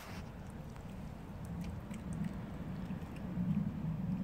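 A cat chewing and licking wet food, faint small clicks, over a steady low rumble that swells about three and a half seconds in.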